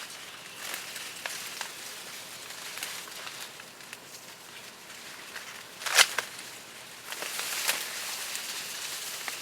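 Corn stalks and leaves rustling and crackling as someone moves down a row of sweet corn picking ears, with a sharp snap about six seconds in and a burst of denser rustling just after.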